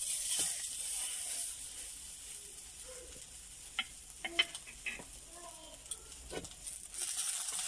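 Egg-soaked slice of bread frying in hot oil in a pan, with a steady sizzle that swells again near the end and a few sharp pops in the middle.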